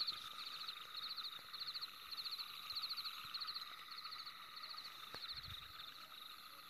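Faint chirping of night insects: short, rapidly pulsed high-pitched chirps repeating about every half second over a steady high trill, fading a little toward the end.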